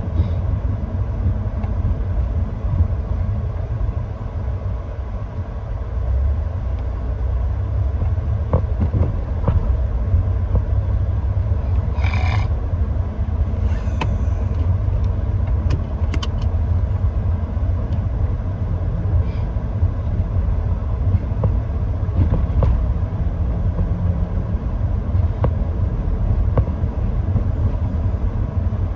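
Steady low rumble of a car's engine and road noise heard inside the cabin, with a brief hiss about twelve seconds in.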